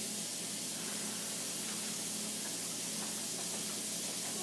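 Steady, even hiss with a faint low hum underneath, unchanging throughout, with no distinct events.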